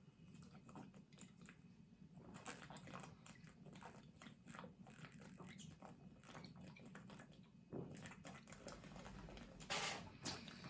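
Faint chewing, with many small, irregular clicks and crackles.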